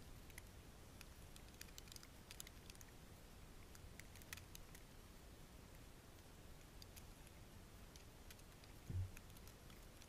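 Near silence with faint, scattered ticks of wet snow landing on the camera, over a low rumble, and one dull thump about nine seconds in.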